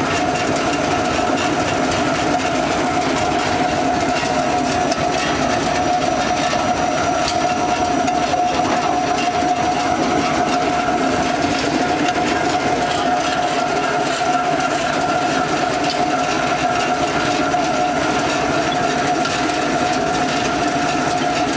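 Vertical-die centrifugal pellet mill running steadily while pressing bamboo sawdust into pellets: a constant mechanical drone with a steady whine over a dense rattling clatter.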